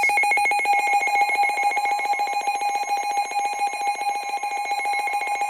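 Emergency Alert System attention tone sounding steadily for a tornado warning: a loud, unbroken two-pitch alert tone with a fast flutter.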